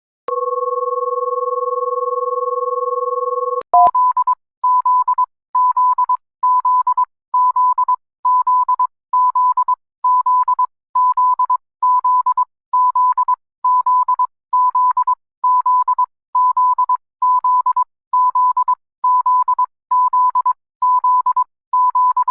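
Electronic emergency alert alarm tones: a steady two-note tone held for about three and a half seconds, then a single beeping tone repeating about one and a half times a second.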